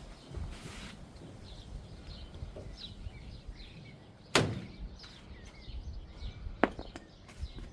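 Quiet outdoor background with a low rumble and faint, short bird chirps. A sharp knock about four and a half seconds in, and a smaller click a couple of seconds later.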